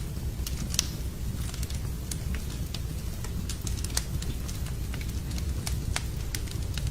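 Wood fire in a fireplace crackling, with irregular sharp snaps and pops over a steady low rumble.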